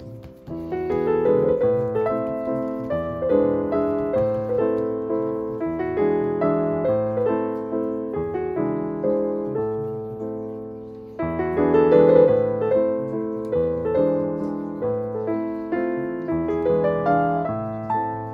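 Background piano music: a steady, flowing run of single struck notes that ring and fade. It dips briefly and swells again about eleven seconds in.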